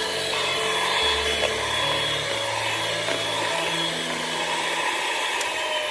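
Electric mixer running steadily at high speed, beating cookie batter.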